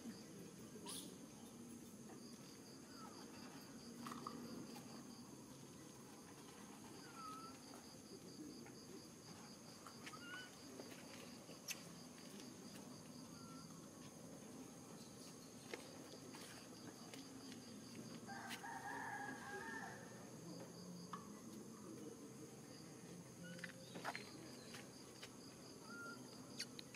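Faint outdoor ambience of insects: a steady high drone with a rapidly pulsing chirp, a few short bird chirps, and a rooster crowing once about eighteen seconds in.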